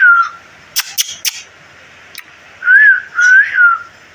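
Short whistled notes, each rising and then falling in pitch: one at the start and two more about three seconds in, with three sharp clicks in between.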